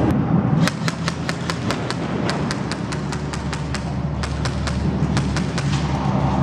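Airsoft guns firing during a game: a run of sharp, irregular snaps, several a second, starting a little under a second in, over a steady low rumble.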